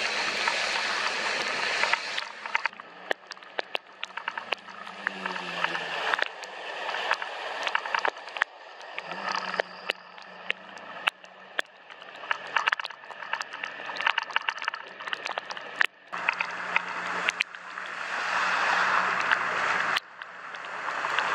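A Honda motorbike riding through heavy rain: a steady hiss of tyres and spray on the wet road, many sharp raindrop taps on the camera, and the small engine running, its pitch falling and rising as the bike slows and speeds up.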